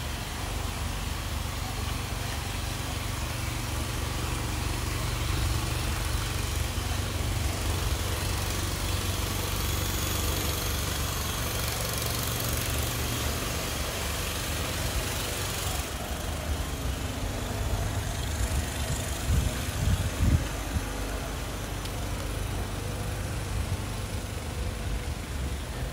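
A vehicle engine idling, a steady low hum throughout. A high hiss drops away about sixteen seconds in, and a few low thumps come around twenty seconds in.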